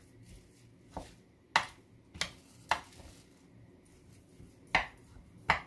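Raw minced meat, rice, onion and spices being mixed by hand in a wooden bowl, heard as a handful of sharp clicks and knocks, several about half a second apart.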